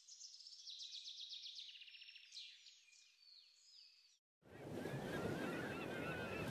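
A songbird singing quick chirps and rapid trills, cutting off about four seconds in. After a brief gap, waves wash steadily on a shore, with geese honking over the surf.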